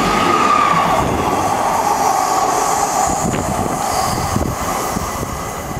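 Class 159 Express Sprinter diesel multiple unit moving past and away along the platform, its underfloor diesel engines running with a steady whine over the rumble of wheels on rail. The sound fades slightly near the end as the train draws away.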